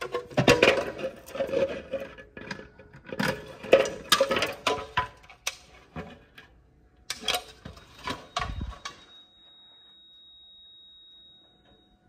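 A ring of metal keys jingling and clinking, mixed with clicks and knocks as the clear plastic protective cover over a fire alarm pull station is lifted and the station is handled. The handling stops about nine seconds in, leaving a faint steady high-pitched tone.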